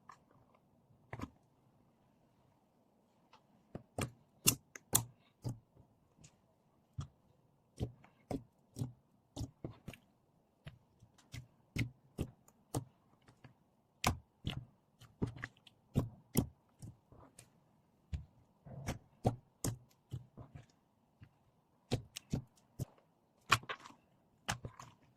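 Slime being played with by hand, making a string of sharp, irregular clicks and pops, some in quick clusters, about two a second, starting a few seconds in.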